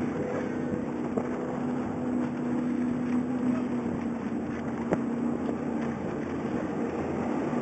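Offshore racing powerboat's engines droning steadily as it runs at speed across the water, easing off slightly near the end.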